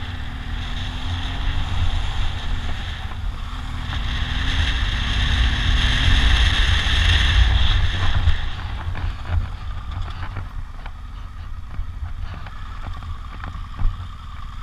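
BMW R1200GS Adventure's boxer-twin engine pulling along a gravel track, its revs climbing and falling under heavy wind noise on the microphone. The wind is loudest midway. After that the bike slows and the engine drops to low revs, with light clatter over the gravel.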